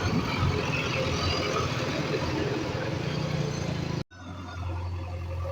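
Heavy diesel machinery engine running steadily. About four seconds in the sound cuts out abruptly, then an engine carries on more quietly.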